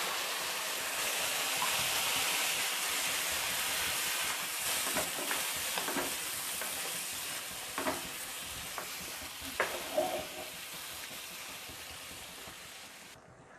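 Hot mushroom masala sizzling in a pan as water is added, with a spoon knocking against the pan a few times as it is stirred. The sizzle slowly weakens and stops abruptly near the end.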